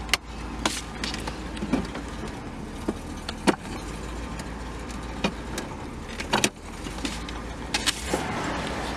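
1970 Cadillac De Ville's V8 engine idling steadily, heard from inside the cabin, with a few sharp clicks scattered through it and a rise of hiss near the end.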